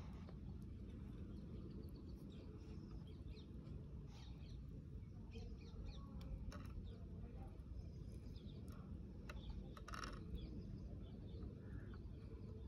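Faint, scattered short high bird chirps over a steady low background rumble, with a few soft clicks.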